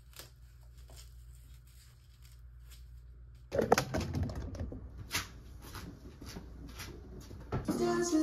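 Quiet room with a low hum and a few faint clicks, then, from about three and a half seconds in, louder rustling and knocking of movement right at the microphone. Music starts near the end.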